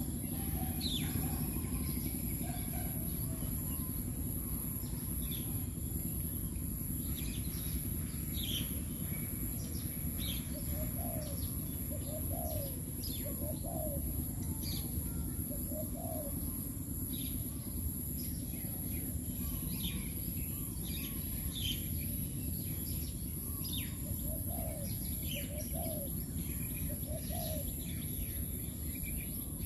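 Doves cooing in short low phrases that come back every few seconds, with small birds giving brief high chirps in between.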